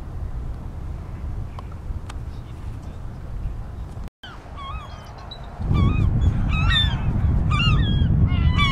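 A steady low rumble of wind on the microphone. About halfway through, gulls and bald eagles start calling overhead, many short cries that rise and fall in pitch, while the wind grows louder.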